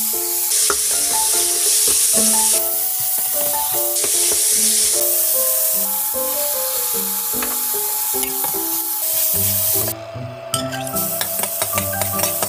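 Sliced pork sizzling hard in a hot stainless steel wok as it is stir-fried with a metal spatula, over background music. About ten seconds in, the hiss drops and gives way to quieter frying of minced garlic, with quick clicks and scrapes of the spatula against the wok.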